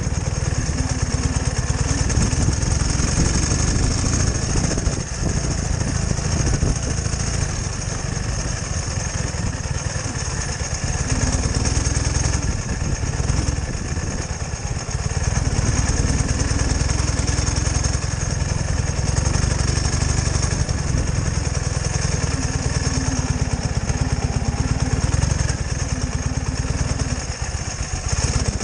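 Ural sidecar motorcycle's flat-twin engine running while the bike is ridden slowly over a rough dirt track, its level dipping briefly a few times.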